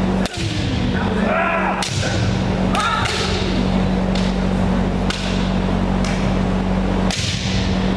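Bamboo shinai striking kendo armour with about five sharp cracks, each ringing on in the hall's echo. Short kiai shouts rise between the first strikes, over a steady low hum.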